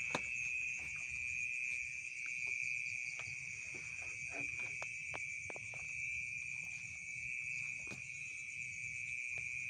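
Night insect chorus of crickets: a steady high-pitched trill with a faster pulsing layer above it, and a few faint clicks.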